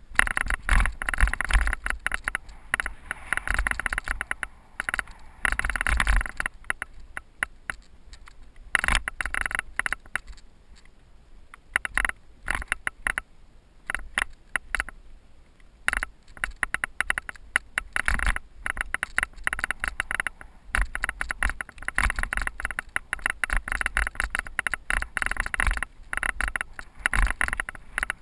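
Cyclocross bike rattling and clattering down rocky singletrack: a dense, irregular run of knocks from the tyres, chain and frame hitting the rocks, easing off for a calmer spell in the middle before the clatter picks up again.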